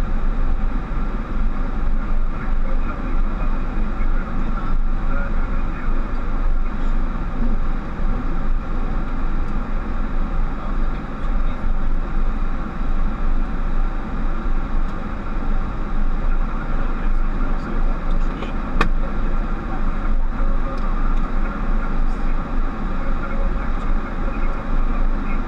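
Steady rush of engine and airflow noise inside a Boeing 737 cockpit, with one sharp click about nineteen seconds in.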